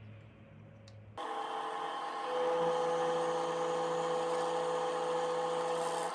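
Drill press running with its bit boring into the end grain of a square wooden blank: a steady machine sound that starts abruptly about a second in and grows louder as the bit cuts, easing off near the end.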